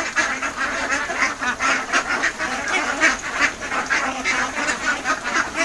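A flock of Khaki Campbell ducks quacking, many short calls overlapping without a break.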